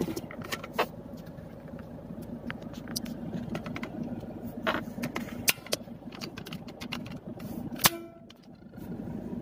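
Car cabin noise while driving: a steady low engine and road hum with scattered clicks and taps, and one sharp click near the end followed by a brief drop in level.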